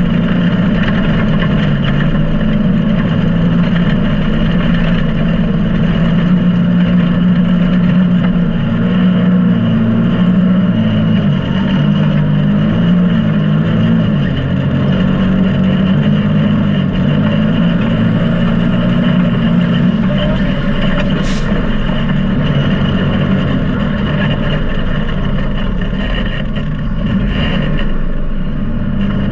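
Can-Am Maverick X3 turbocharged three-cylinder UTV engine running under way, its note wavering up and down with the throttle.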